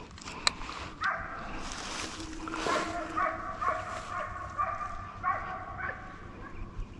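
Deer-hunting hounds baying: a run of drawn-out cries starting about a second in and repeating in bursts. A single sharp click comes just before them.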